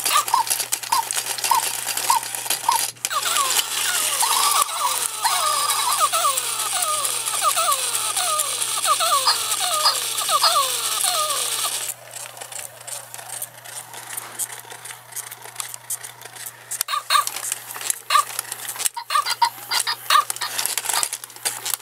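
Tekno robotic puppy toys sounding off: a run of short electronic beeps, then from about three seconds in a long string of quick chirps that fall in pitch over a hiss. From about halfway the sound drops to a quieter clicking and rattling of the toys' plastic works, with a few more beeps.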